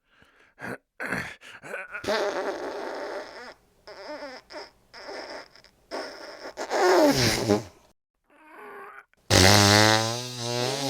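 Fart sounds, one after another: a string of short ones and a few longer ones, with a long, low, steady-pitched one starting near the end.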